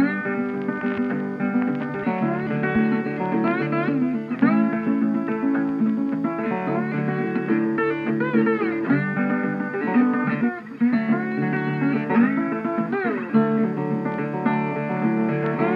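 Background music led by guitar, with frequent bent notes.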